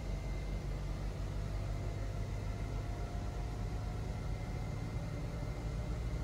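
Steady low mechanical rumble and hum, with faint steady high tones above it and no sudden sounds.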